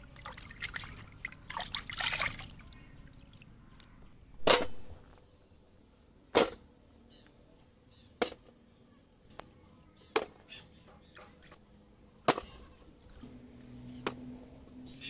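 Water sloshing and splashing as a large trevally head is rinsed by hand in a metal bowl. Then six separate knocks about two seconds apart: heavy fish heads set down one at a time on a metal plate, the first the loudest.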